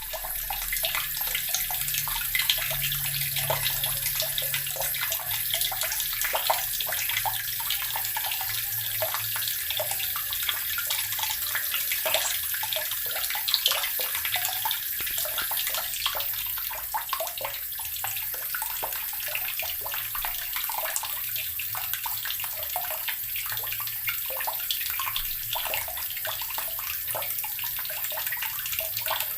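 Water running steadily from a tap and splashing into water below, a continuous rushing hiss with small splashes and gurgles.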